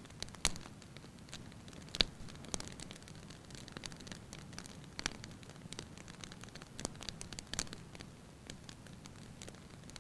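Wood fire burning in a fireplace: a soft steady hiss with irregular sharp crackles and pops, the loudest about half a second and two seconds in.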